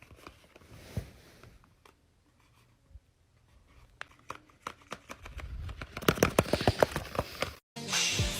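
Paper crinkling and clicking as a paper dragon puppet is handled, with scattered snaps at first and a quick run of louder clicks in the second half that cuts off abruptly near the end.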